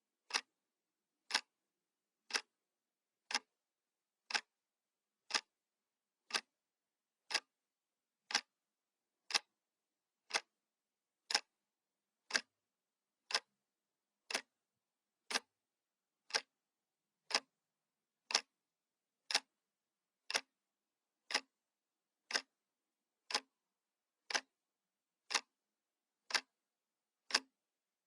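Analog clock ticking steadily once a second. Each tick is a short, sharp click with dead silence between ticks.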